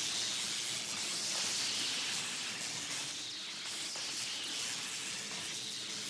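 Steady soft hiss, an even rush of noise with no clear events in it.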